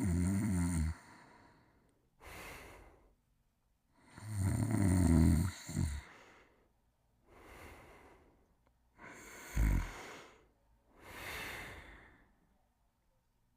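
A sleeper snoring in a slow, regular breathing cycle: a rattling snore at the start, another about four seconds in, and a short, low one near ten seconds, each followed by a softer, airy breath.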